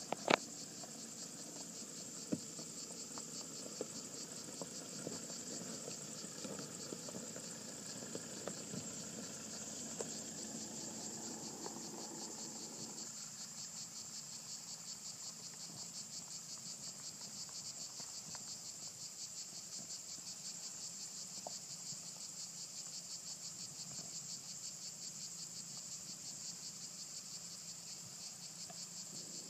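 A steady chorus of cicadas, a high, finely pulsing buzz. Under it for the first dozen seconds a diesel SUV engine runs low with scattered clicks, and it stops abruptly about halfway through.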